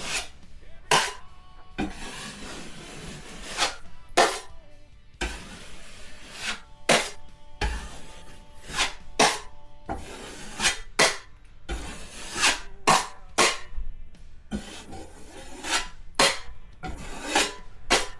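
Drywall taping knife scraping and smoothing joint compound over a paper-edged blowout patch: a run of short, irregular scraping strokes, about one or two a second.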